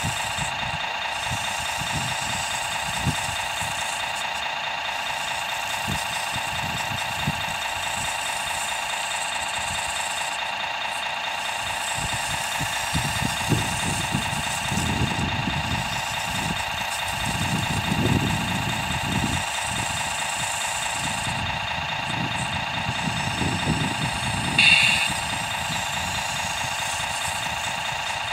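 Radio-controlled construction model's engine sound running steadily at an even, idle-like pitch, with a short higher sound about 25 seconds in.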